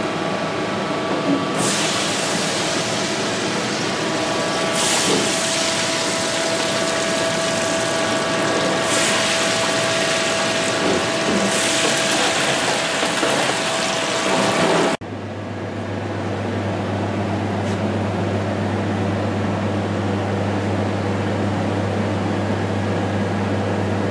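Red bream frying in hot oil: a dense, steady sizzle that swells several times. About fifteen seconds in, the sound cuts abruptly to a steady low mechanical hum.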